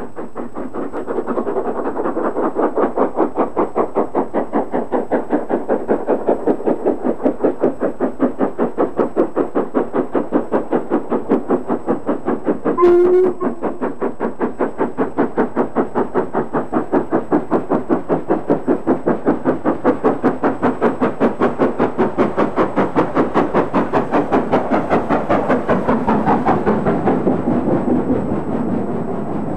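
LMS Princess Royal class Pacific No. 6201 Princess Elizabeth, a four-cylinder steam locomotive, working a train with a rapid, steady exhaust beat as it approaches and passes. A short whistle note comes about thirteen seconds in. The beats fade near the end as the coaches roll by.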